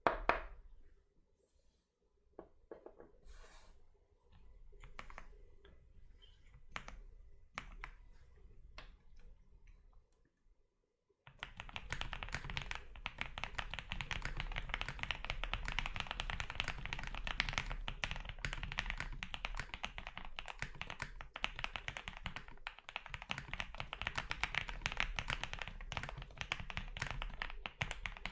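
Zoom65 mechanical keyboard with lubed and filmed SP-Star Meteor White switches: a few scattered clicks and taps for about the first ten seconds, then fast, continuous typing from about eleven seconds in.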